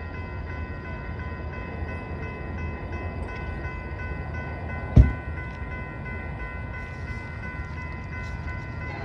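Railroad crossing warning bell ringing steadily as the gate arms come down, over a low rumble. A single sharp thump about five seconds in.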